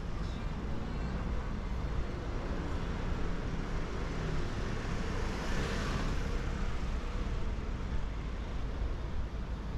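Steady city street traffic noise, with one vehicle passing close about halfway through, swelling and then fading.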